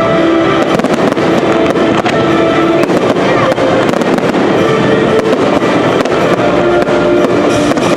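Fireworks bursting and crackling in rapid succession over loud show music.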